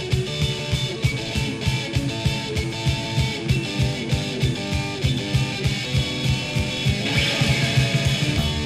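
Noise-pop band music with drums keeping a steady, quick beat under electric guitar, just after the start of a new song.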